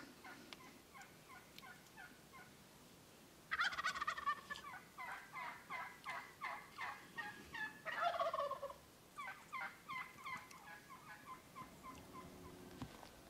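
Merriam's wild turkeys calling: a long series of short, rapid notes that starts in earnest about three and a half seconds in, peaks around four and eight seconds in, then tapers off.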